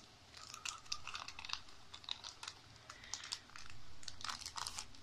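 Clear plastic sleeve around a new smartphone crinkling and clicking as hands turn the phone over, in four short bursts of quick crackles.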